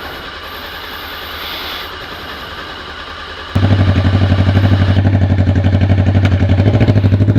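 Honda CB 500's carbureted parallel-twin engine running quietly through its stock exhaust. About three and a half seconds in, it cuts abruptly to the same engine idling far louder with a hard, even pulse, running with no muffler, just the bare pipe.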